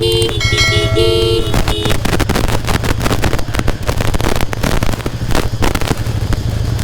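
Motorcycle engine running on a rough downhill trail, with a dense crackle of rattling and tyre noise over the engine's steady low note. In the first couple of seconds a few steady held tones sound over it.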